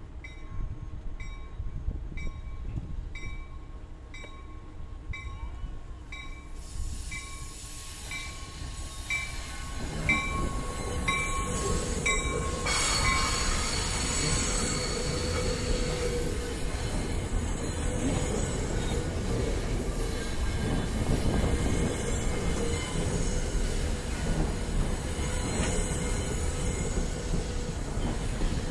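A grade-crossing bell dings steadily for the first dozen seconds. Then an NJ Transit commuter train of bilevel-free Comet coaches rolls past close by, its wheels rumbling and squealing on the curve.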